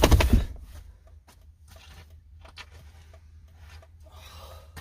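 A driftwood log scraping and sliding into a vehicle's cargo area, loudest in the first half-second, followed by faint rubbing and a few small knocks as the wood settles.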